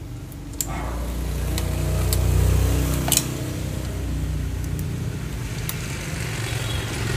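An engine running, swelling in level over the first few seconds and then holding steady, with a few sharp clicks over it.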